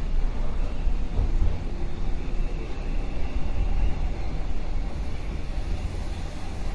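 Subway train running: a steady low rumble of wheels on track, with a faint whine above it, easing slightly in loudness near the end.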